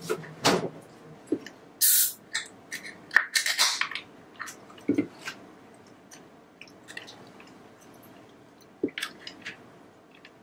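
Beer poured from a can into a glass: irregular splashing and gurgling spurts over the first few seconds. A single sharp click comes near the end.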